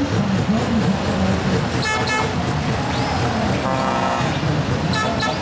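Truck air horns honking in several separate blasts, one near 2 s, a longer one around 4 s and a short one near the end, over a steady low rumble.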